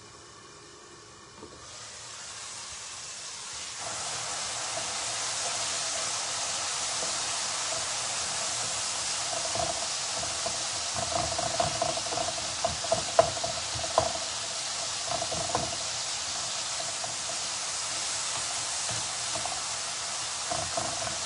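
Spice masala sizzling in hot oil in a pan; the hiss swells over the first few seconds and then holds steady. From about ten seconds in, a spatula scrapes and taps against the pan as it is stirred.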